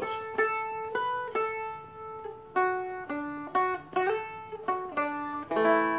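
Seagull Merlin M4, a four-string fretted dulcimer-style instrument, flatpicked slowly one note at a time, about ten ringing notes with a slide between two of them. Near the end comes a strummed chord that rings on.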